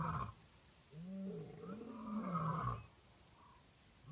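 A big cat growling, a run of rising-and-falling snarls from about one to three seconds in, over faint, evenly spaced insect chirps.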